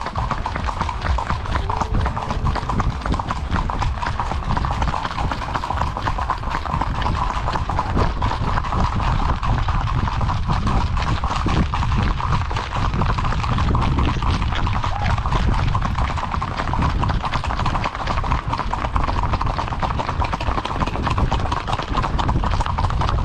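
Horse hooves clip-clopping in a quick, dense, unbroken run of hoofbeats as horses are ridden along.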